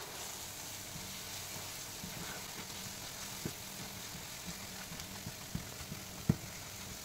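Onions, ginger-garlic paste and ground spices sizzling softly in oil in a non-stick frying pan while a slotted spatula stirs them, with small scrapes and taps of the spatula on the pan and one sharper tap about six seconds in.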